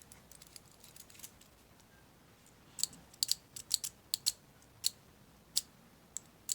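Adjustment dial of a vintage Gillette adjustable safety razor being turned, giving a series of sharp little clicks as it steps through its settings, bunched together about three to five seconds in.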